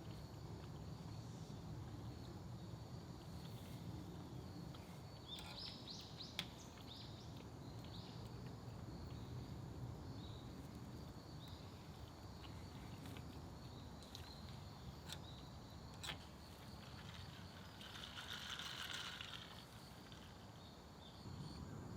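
Faint forest ambience: a steady high drone of insects under a low background hum, with a couple of brief bird calls and a few small sharp clicks.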